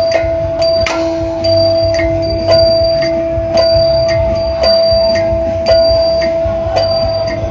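Shadow-puppet ensemble music: long held melody notes over a low drum beat, with a bright metallic bell-like clink struck about twice a second.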